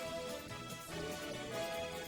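Music: a band playing an instrumental passage, with held melody notes over a steady accompaniment.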